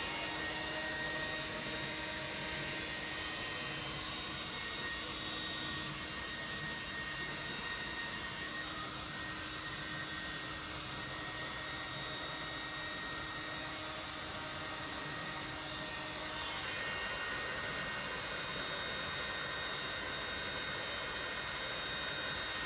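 Hair dryer running steadily: an even rush of air with a thin motor whine on top. The tone shifts a little about three-quarters of the way through.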